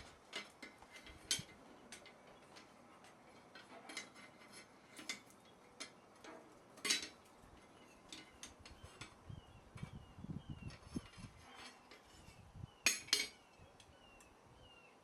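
Scattered light metallic clinks and taps of steel tools and stock being handled at a blacksmith's bench, at an irregular pace with a few sharper knocks, two of them close together near the end.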